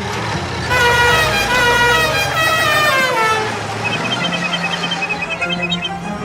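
Cartoon sound effects: a loud horn-like tone with a rich buzz slides down in pitch over about three seconds, then a rapid high twittering of short beeps over a low steady hum.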